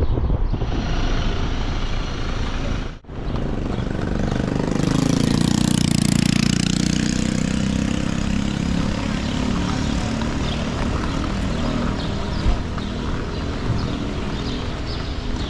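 Wind rushing over the microphone from a moving car, cut off suddenly about three seconds in. Then a steady low drone of a vehicle engine running close by, with one brief knock near the end.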